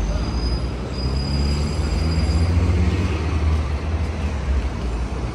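Steady low rumble of vehicle traffic, with a faint thin high-pitched whine through the first half.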